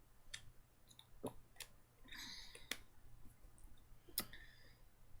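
Near silence with about five faint, sharp clicks spread through it and a short hissy rustle about two seconds in.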